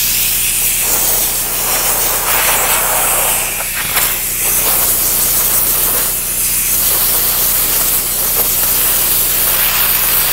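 Compressed-air blow gun hissing steadily as it blows a jet of air through a duck skin's feathers, with small rises and falls as the nozzle moves.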